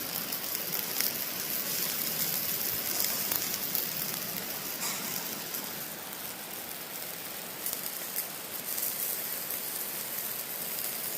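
Butter and trout sizzling on a grill: a steady crackling hiss with scattered pops.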